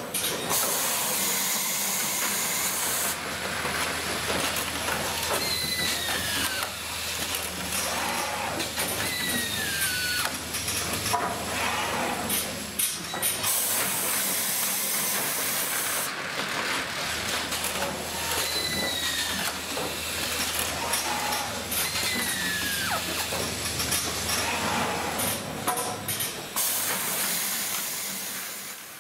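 Automated assembly line for fitting and clip mounting running: pneumatic mounting units let out three long bursts of air hiss, over a steady machine hum with scattered clicks and knocks of parts on the conveyors. Several short whines fall in pitch.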